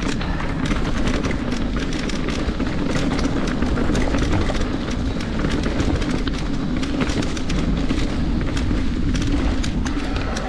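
Santa Cruz Nomad mountain bike riding a rough dirt and rock trail, heard on a bike-mounted action camera: a steady low rumble of tyres and wind with many quick clicks and rattles from the bike.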